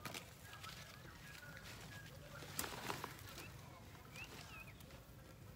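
Faint bird calls, thin whistles and a couple of short chirps, with a brief cluster of knocks and rustling about two and a half seconds in.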